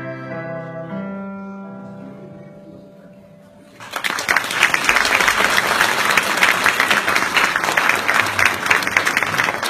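Final held chord of a keyboard and children's wind instruments fading away, then the audience breaks into loud applause about four seconds in and keeps clapping.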